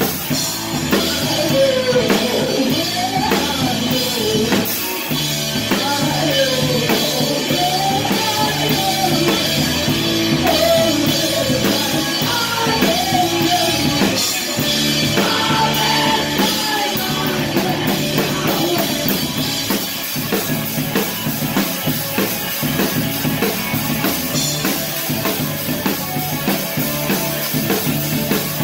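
A live band playing a loud rock song, heard from right beside the drum kit: drums hit hard and steadily throughout. A sung vocal line carries over them for roughly the first half.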